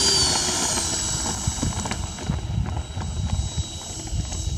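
Radio-controlled model Boeing 737's twin jet engines whining, the pitch dropping slightly in the first second and then holding steady and somewhat quieter as the model taxis across grass. An uneven low rumble runs underneath.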